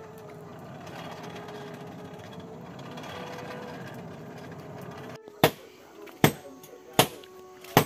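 Hand-cranked forge blower whirring steadily. About five seconds in, a sledgehammer starts striking iron on the anvil: four heavy blows just under a second apart, each with a short metallic ring.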